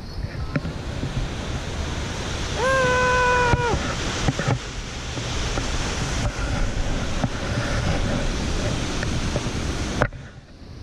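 Waterfall rushing steadily, with wind buffeting the microphone. About three seconds in, a single steady high note is held for about a second. The rush cuts off abruptly near the end.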